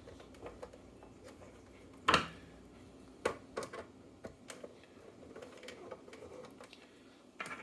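Scattered small clicks and taps as screws are fitted to the AeroGarden Bounty's plastic pump cover: one sharper knock about two seconds in, then a few lighter clicks.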